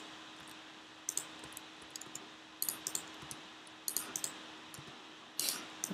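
Computer mouse and keyboard clicks in small clusters, about five bursts a second or so apart, over a faint steady hum.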